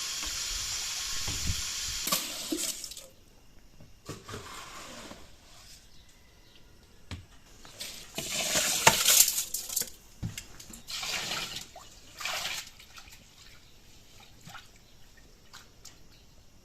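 Tap water running into a sink for about three seconds, then several shorter spells of pouring and splashing with small clicks in between.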